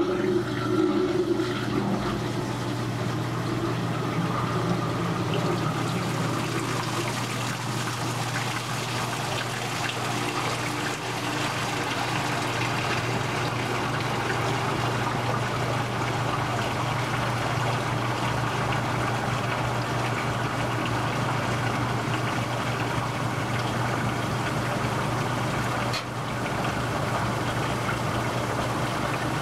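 1949 Maytag AMP automatic washer in its final spin: the motor hums steadily while the pump drains the warm rinse water out of the spinning tub, with a steady rush of swirling water.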